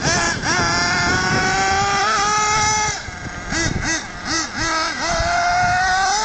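Thunder Tiger EB4 S3 nitro RC buggy's .28 two-stroke glow engine running hard, its high-pitched note rising and falling with the throttle. About three seconds in it drops off and gives several quick throttle blips before opening up again.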